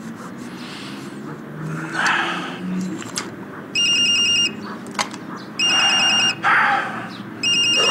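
Mobile phone ringing with a high, rapidly pulsing electronic ringtone: three short rings, each under a second and about two seconds apart, beginning about halfway through. Small clicks and rustles of the phone being handled come between them.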